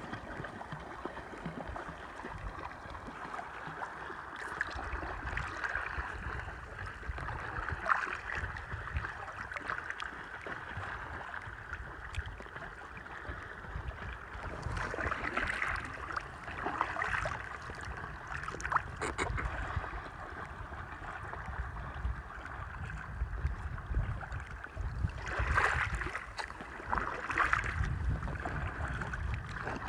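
Kayak paddle strokes in calm sea water: the blade dips and splashes, with drips and light gurgling, the brighter splashes coming every few seconds over a steady low rumble.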